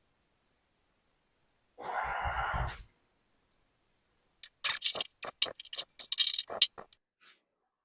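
A short rushing hiss lasting about a second, then a quick run of sharp metallic scrapes and clicks from hand work on the aluminum door skin during brazing.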